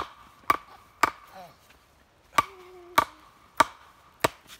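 Repeated blows of a metal tool: seven sharp strikes about half a second apart, with a pause of just over a second after the third, each leaving a brief metallic ring.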